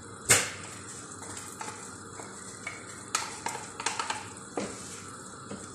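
A wooden spatula stirring a frying tomato-and-onion masala in a metal pot, as crushed dried lemon is mixed in, over a faint steady sizzle. One sharp knock of the spatula on the pot comes about a quarter second in, and a few lighter clicks follow around the middle.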